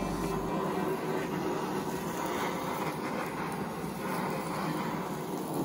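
Handheld culinary blowtorch on a gas canister burning with a steady flame hiss as it sears the sauce-topped sushi rolls.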